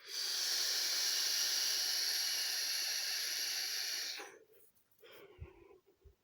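A long drag on an e-cigarette vape: about four seconds of steady hissing air drawn through the device, which stops abruptly. It is followed by faint breathy sounds.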